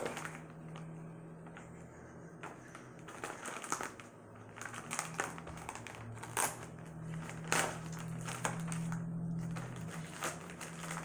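Plastic mailer envelope being slit open with a small knife and handled, crinkling and rustling, with a few louder crackles in the second half.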